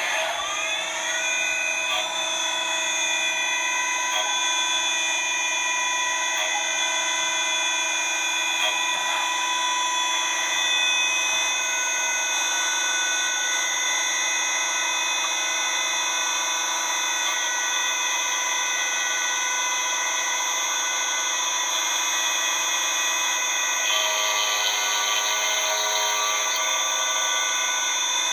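CK28 slant-bed CNC lathe running: a steady multi-tone machine whine that rises in pitch over the first two seconds, then holds. About 24 seconds in, a rougher, higher layer joins for a couple of seconds.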